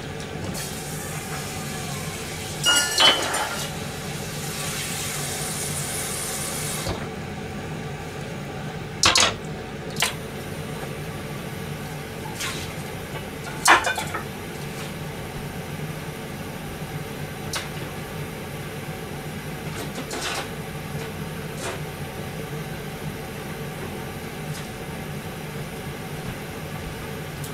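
A metal saucepan clattering against a gas hob's burner grate as it is moved and set down, with a few lighter clinks and knocks about 9, 10 and 14 seconds in, over a steady low hum. A hiss runs through the first several seconds.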